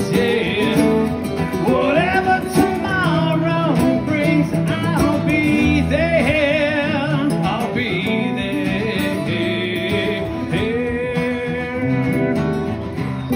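Two acoustic guitars playing live: one strumming chords steadily while the other picks a lead melody of sliding, wavering high notes.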